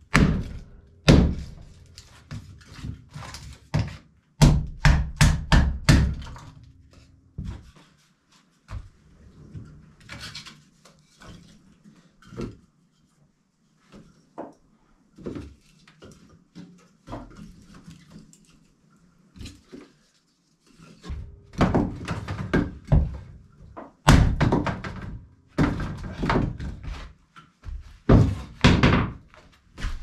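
Hatchet splitting kindling on a wooden block: a run of sharp, repeated thunks of the blade biting into wood. In the middle come quieter knocks of sticks being handled, and loud strikes start again in the last third.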